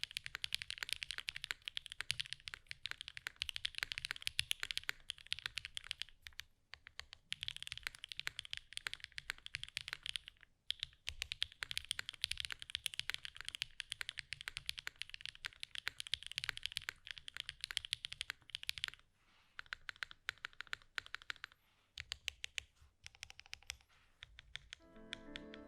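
Fast, continuous typing on a Qk60 mechanical keyboard with an aluminium plate, lubed Gateron x SwagKeys Modern Grey linear switches with POM stems and GMK Colorchrome keycaps, broken by a few brief pauses. Piano music comes in at the very end.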